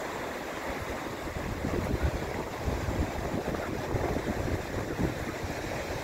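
North Sea surf washing up a sandy beach, with wind buffeting the microphone in irregular low gusts that grow stronger about two seconds in.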